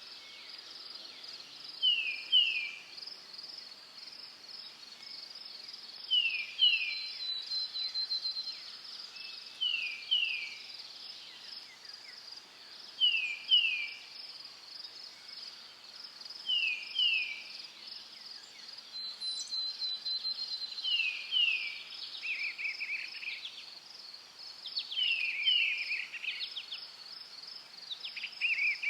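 Nature ambience: a steady, high insect chorus, with a bird repeating a pair of quick falling notes about every three to four seconds. Rougher, lower calls join in during the last third.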